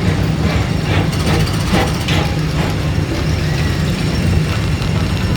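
Tomorrowland Transit Authority PeopleMover ride car gliding along its track, giving a steady low hum.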